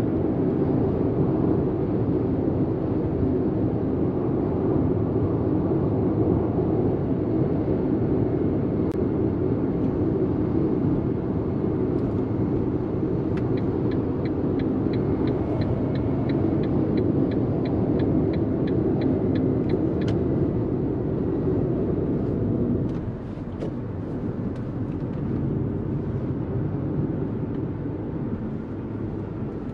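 Inside the cabin of a Fiat Panda with the 1.0 naturally aspirated three-cylinder petrol mild-hybrid engine, the engine and road noise run steadily at highway speed. Midway comes an evenly spaced ticking, about three a second for some six seconds, typical of the turn-signal indicator. About 23 seconds in, the engine and road noise drop and stay lower.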